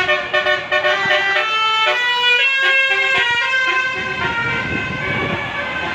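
Indonesian telolet musical bus horn playing a tune of stepped notes, several horn tones sounding together and changing pitch every fraction of a second.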